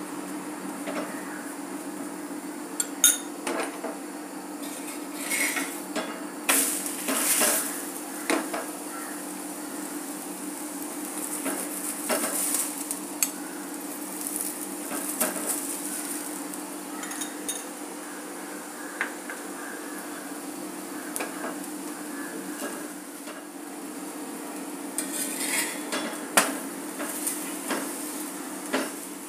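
Rice-flour roti with greens cooking on a hot tawa: oil sizzling, with a steel spatula clinking and scraping against the pan now and then, a sharp clink about three seconds in and another near the end. A steady low hum runs underneath.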